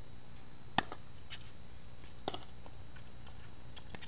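Pickleball paddles striking a plastic pickleball in a rally: three sharp pops about a second and a half apart, the first, about a second in, the loudest, with fainter ticks between.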